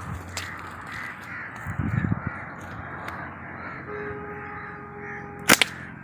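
Birds calling in the trees, with a steady held tone lasting over a second near the end, then a single loud, sharp snap: a slingshot's rubber bands released on a shot.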